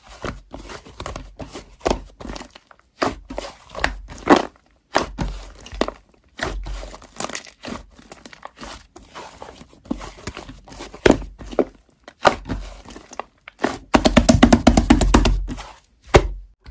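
Slime being squeezed and poked by hand: irregular sticky clicks, crackles and small pops, with a dense run of rapid pops near the end.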